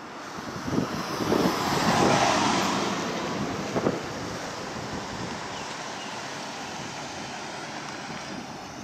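Outdoor wind noise buffeting the microphone, mixed with a vehicle driving on the street. The sound swells about two seconds in, then settles to a steady hiss.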